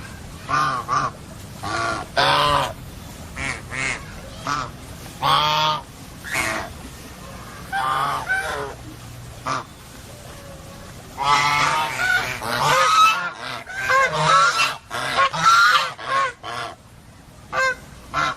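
Birds giving short, honking calls one after another, crowding and overlapping in the second half, over a low steady hum.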